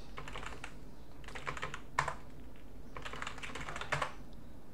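Computer keyboard keys being typed in three short bursts of quick clicks, with one slightly louder keystroke about two seconds in.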